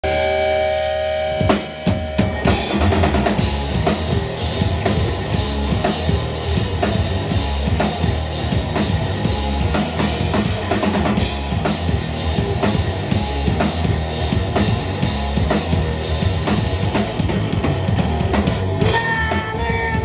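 Live rock band playing a song intro. A held chord rings for about a second and a half, then the drum kit and electric bass come in together on a steady beat. A voice starts singing near the end.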